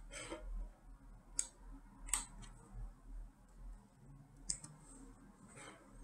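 Faint, sharp clicks of a computer mouse and keyboard, about four or five spread a second or so apart, over a low room hum.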